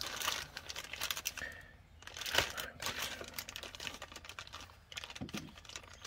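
Irregular light clicks with some rustling: buttons being pressed on a Ford accessory keyless-entry keypad as its master code is entered.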